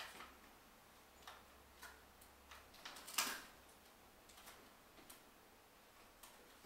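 A cat scuffling with a plush toy on a doormat: faint, irregular soft clicks and rustles, with one louder scuff about three seconds in.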